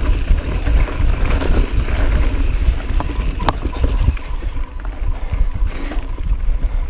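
Mountain bike riding fast down dry dirt singletrack, heard through wind buffeting the action-camera microphone: a steady rumble of wind and tyres on dirt, with a couple of sharp clicks from the bike about three seconds in.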